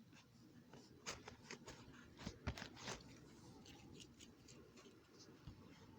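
Faint, scattered little clicks and rustles of hands working a freshly made batch of homemade slime.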